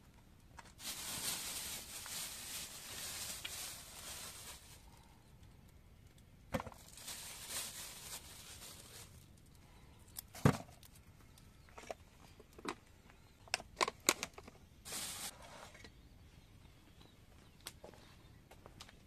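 Plastic bags rustling in a few bursts while produce is handled, with several sharp knocks and clinks, the loudest about ten seconds in and a quick cluster a few seconds later, as jars and containers are set down on a metal tray.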